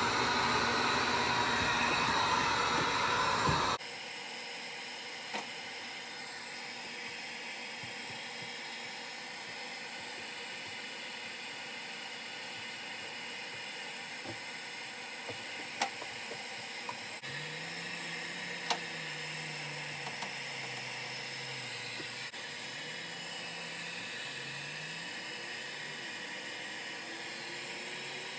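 Handheld heat gun blowing steadily on its high setting for the first few seconds, then cutting off abruptly. After that only a low steady hiss with a few faint clicks.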